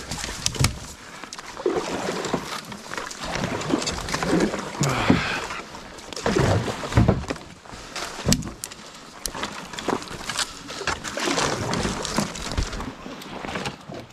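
Kayak being forced through tangled alder brush on a narrow creek: branches repeatedly crack, snap and scrape against the paddle and hull, with swishing and splashing as the paddle pushes through, and a few short grunts of effort.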